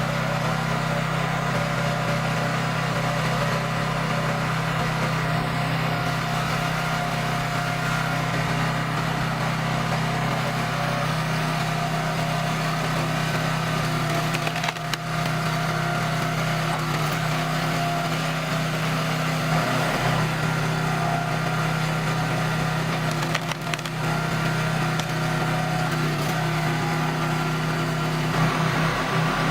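Honda GX270 single-cylinder four-stroke engine of a 37-ton log splitter running steadily, with a couple of sharp cracks of wood splitting under the wedge, about halfway through and again later.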